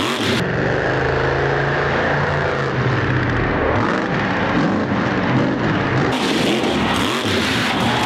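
Monster truck engine revving hard, its pitch rising and falling over a noisy haze. The sound changes abruptly about half a second in and again after six seconds.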